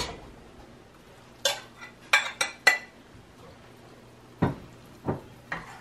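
Stainless steel cookware clinking and knocking as cooked black beans are emptied from a cup into a stockpot. There are four sharp, ringing metal clinks about a second and a half in, then three duller knocks near the end.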